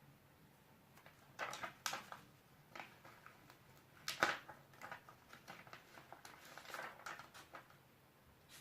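Faint handling noises of sewing and craft work: a few short rustles and taps, the loudest about four seconds in, with softer rustling after.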